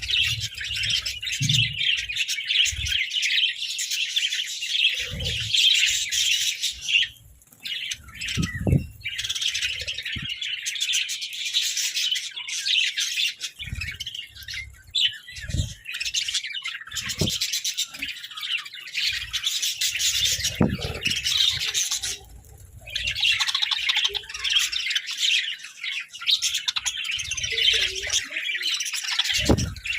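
A flock of budgerigars chattering and chirping without a break, with a few soft low thumps among the calls. The chatter drops away briefly twice, about a third of the way in and again about three quarters in.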